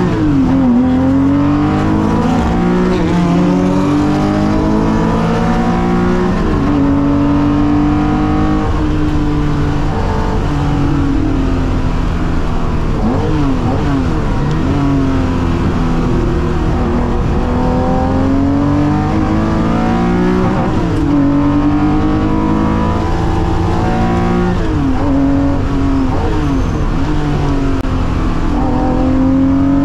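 Porsche 911 IROC replica's air-cooled flat-six racing engine heard from inside the car under hard driving. The engine pitch rises under acceleration and drops on lifts and gear changes, over and over.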